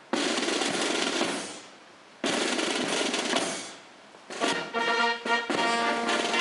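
Military band: two sudden percussion crashes, one at the start and one about two seconds in, each dying away over a second and a half. Then brass and drums strike up with held notes.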